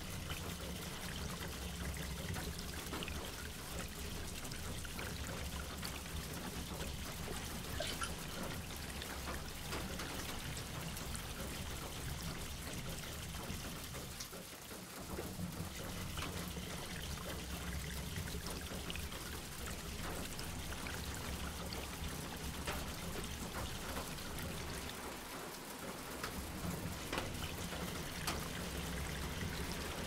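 Water from the long metal spout of a watering can pouring and trickling onto potting soil in seeded pots, with two brief pauses.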